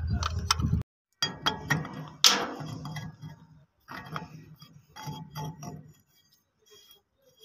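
Light metallic clicks and clinks of a steel hydraulic pipe fitting being handled and turned into a crane hydraulic pump's port, with one sharper clink about two seconds in.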